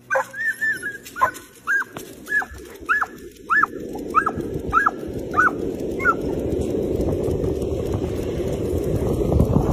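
Dog giving a run of short, high-pitched excited yips, about one every half second to second, as it runs on the leash; the yips stop about six seconds in. Wind rushes on the microphone, growing louder as the runner picks up speed.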